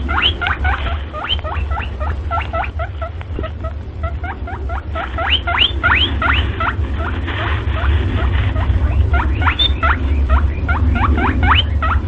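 Small animal squeaking: rapid short squeaks that rise sharply in pitch, several a second, over a steady low hum.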